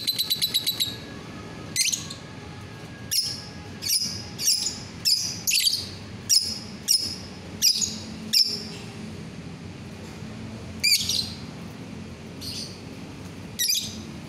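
Caged lovebird calling: a rapid chattering trill that stops about a second in, then a run of about a dozen sharp, shrill chirps, each falling in pitch. They come every half second or so at first and are more spread out in the last few seconds.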